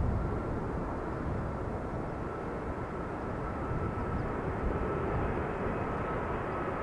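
Icelandair airliner's jet engines running: a steady low rumble with a faint high whine held on top.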